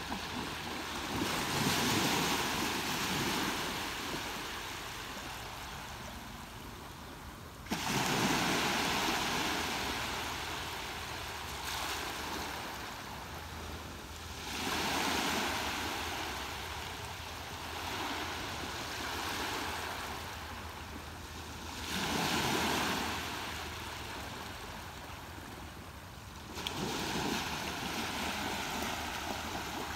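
Ocean waves breaking and washing in, five surges of rushing surf in turn, each swelling and then slowly fading, one arriving abruptly about eight seconds in.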